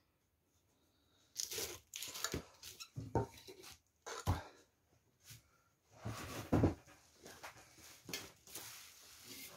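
Metal oil can being handled and set down on a tabletop: a string of irregular knocks, scrapes and rustles.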